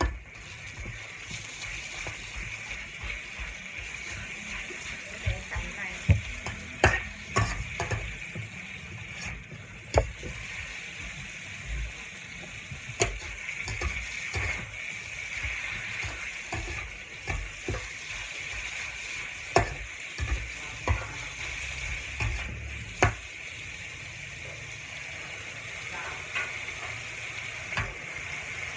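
Pork tenderloin and garlic stir-frying in an electric wok: a steady sizzle with a metal spatula scraping the pan and knocking against it irregularly, a dozen or so sharp clacks.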